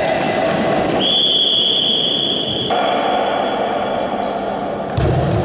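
A referee's whistle blown in one long, steady blast about a second in, over the noise of a futsal game in a large sports hall.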